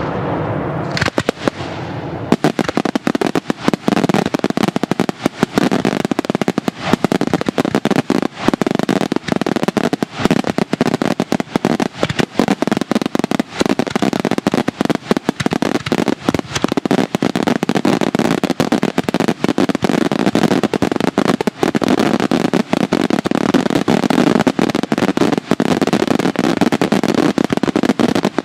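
Daytime aerial fireworks bursting overhead: a dense, rapid barrage of bangs and crackling reports, many per second, that thickens about two seconds in and keeps up without a break.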